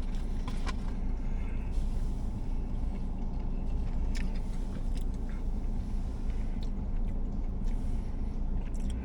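Steady low hum of an idling car heard from inside the cabin, with a few faint clicks and small handling noises.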